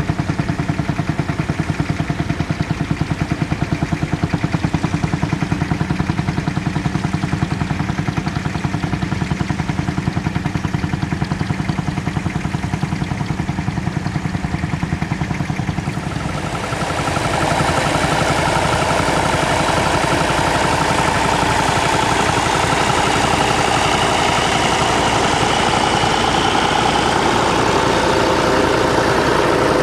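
Massey Ferguson 35X tractor engine running steadily with an even pulse. About halfway through, the sound gets slightly louder and a higher, wavering tone joins in.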